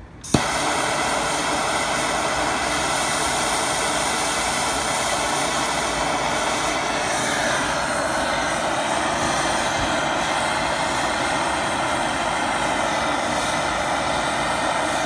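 Propane torch burning with a loud, steady hiss as it heats a copper bus-bar soldering tip. It starts suddenly with a sharp click and cuts off abruptly.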